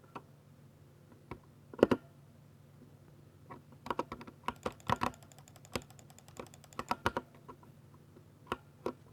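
Typing on a Ducky 60% mechanical keyboard with silver switches: a few scattered key clicks, a loud pair of strokes about two seconds in, a quick flurry of keystrokes in the middle, and two last strokes near the end.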